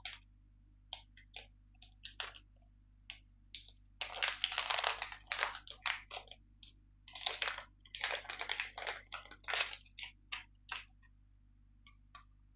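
Packaging crinkling and crackling in a run of short bursts as a new pair of scissors is unwrapped by hand, with scattered clicks between; the crinkling is busiest from about four seconds in to about ten.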